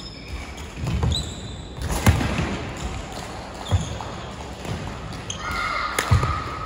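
Badminton rally on a wooden indoor court: sharp racket strikes on the shuttlecock, thudding footfalls and short shoe squeaks, with a jump smash about six seconds in.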